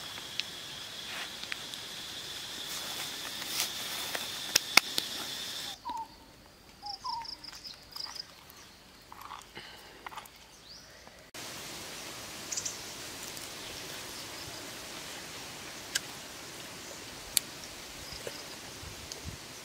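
Outdoor ambience that changes abruptly twice: a steady high insect buzz for the first six seconds or so, then a quieter stretch with short bird chirps, then a plain outdoor hiss. Scattered sharp taps throughout, the loudest about five seconds in.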